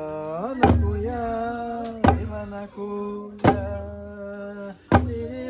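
Song: one voice holding long notes, sliding up into the first, over a deep drum struck once about every one and a half seconds, four strokes in all.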